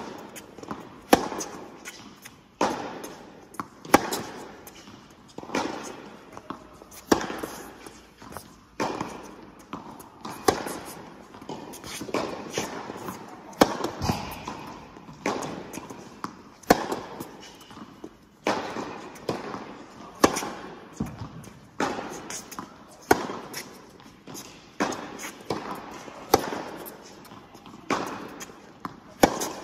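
Tennis rally on an indoor hard court: sharp racket-on-ball hits with ball bounces between them, a strong hit about every second and a half, each echoing briefly in the large hall.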